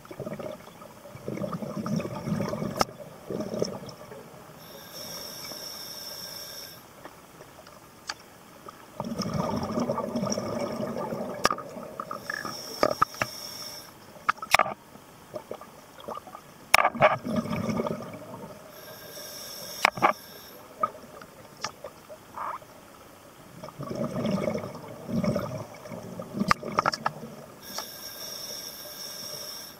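A scuba diver breathing underwater through a regulator, four breaths in all: each one a hiss as the diver inhales, then a burst of bubbles on the exhale, repeating every seven or eight seconds. Scattered sharp clicks sound between the breaths.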